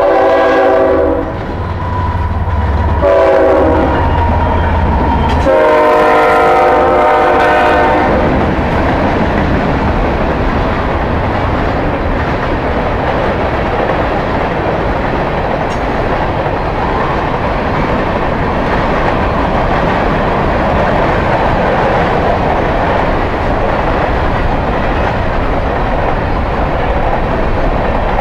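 Freight train passing close by: the diesel locomotive's air horn sounds three blasts, the last one about two and a half seconds long, over the low rumble of the engine, which drops away about five seconds in. Then a steady, loud roar of freight cars rolling past on the rails.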